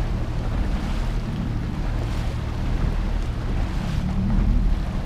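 Small motorboat under way, its engine running steadily, with wind and water noise.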